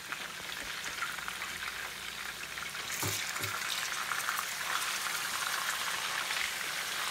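Chicken pieces sizzling and crackling as they fry in hot oil in an electric skillet. A couple of light knocks come about three seconds in, after which the sizzling grows louder.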